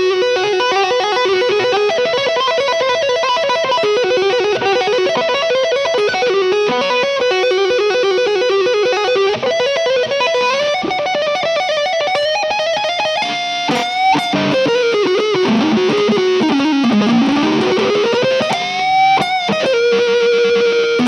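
Electric guitar with EMG 81/85 active pickups on an Epiphone SG 310 playing fast tapped and legato runs of single notes. About two-thirds of the way in come a few high squeals, then the pitch sweeps down and back up before ending on a held note.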